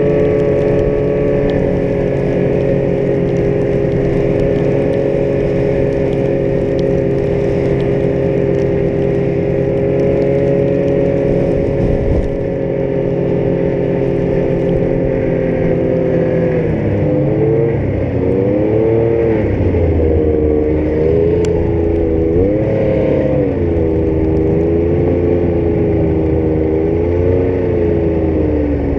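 Yamaha Vector snowmobile's four-stroke three-cylinder engine running under way. It holds a steady pitch for the first half, then rises and falls repeatedly with throttle changes from a little past halfway.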